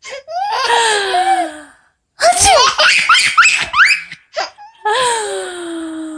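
A baby belly-laughing in long, high, gliding peals, set off by a woman's sharp "achoo" sneeze about two seconds in.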